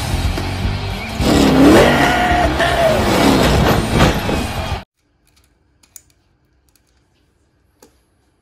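Loud cartoon soundtrack of a monster truck engine revving over arena noise, its pitch rising and falling, cut off abruptly just under five seconds in. After that, a few faint clicks of toy cars being handled on a mat.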